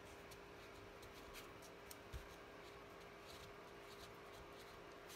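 Near silence with a steady faint hum. A few soft ticks and a small knock come about one and a half to two seconds in as a ball tool works a gum paste calyx on a foam pad.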